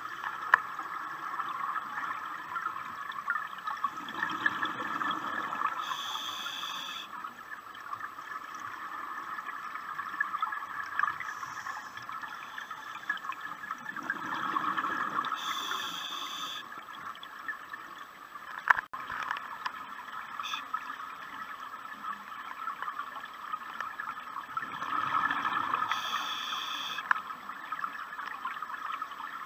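Scuba diver breathing through a regulator underwater. Three breaths come about ten seconds apart, each a rumble of exhaled bubbles ending in a short hiss, over a steady background noise. A single sharp click is heard a little past halfway.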